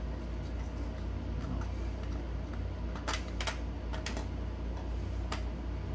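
A few light clicks and taps, the carbon-fibre silencer's metal end knocking against the scooter's exhaust pipe as it is fitted by hand, heard mostly in the second half, over a steady low hum.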